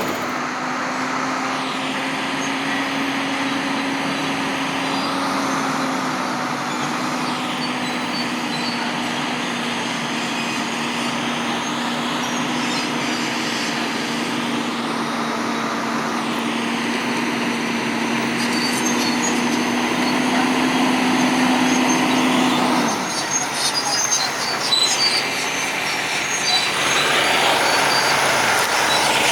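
Logging truck's diesel engine running at a steady pitch under way, over road noise. The engine note changes about three-quarters of the way through, with some rattles after.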